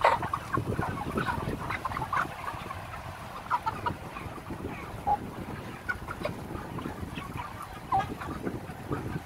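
A dense flock of market-age broiler chickens clucking, with many short calls overlapping throughout. A steady low rumble runs underneath.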